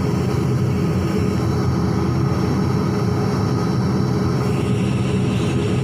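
Steady engine noise inside an airliner's cabin: a loud, unchanging drone with low hum tones.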